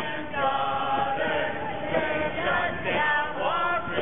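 A group of marchers singing together, several voices holding long notes in unison.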